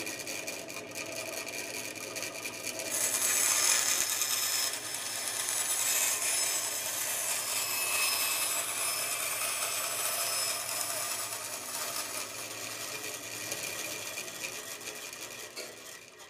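Bandsaw running and cutting through a thin wooden board, with a steady motor hum under the rasping of the blade. The cutting grows louder about three seconds in, then dies away near the end as the machine is switched off partway through the cut.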